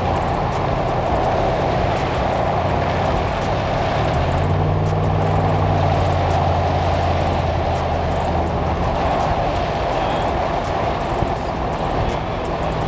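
Cadillac limousine on the highway, heard from inside the cabin: steady tyre and road noise with the engine's drone underneath. The engine note grows stronger about four seconds in and eases off again a few seconds later.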